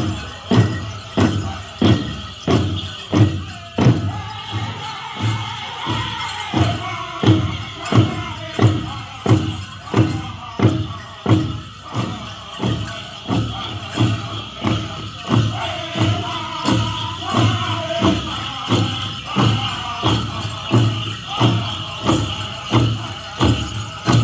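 Powwow drum group playing a chicken dance song: a large hand drum struck by several singers in a steady beat a little under twice a second, under high group singing. Jingling bells run through it.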